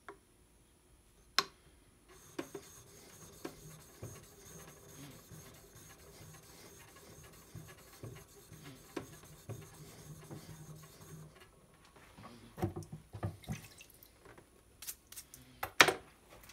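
A deba knife rubbed on a wet whetstone: continuous gritty scraping of steel on stone that stops about eleven seconds in. Then a few knocks, and near the end a stiff brush scrubbing the wet stone in short loud strokes.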